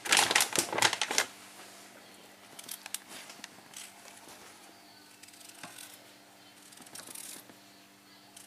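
A kitchen knife paring a small potato over a stainless steel tray: a quick cluster of sharp clicks and knocks in the first second, then faint, scattered clicks and light scraping as the blade shaves off peel and flesh.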